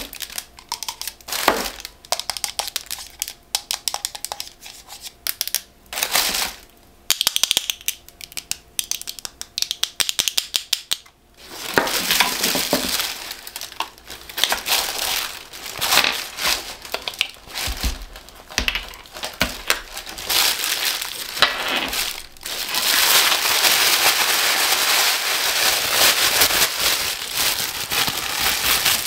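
Hands handling cosmetic bottles and a cream jar, with light clicks and taps, over rustling tissue paper. From about 11 seconds in, tissue paper crinkles and crumples almost continuously, densest over the last several seconds.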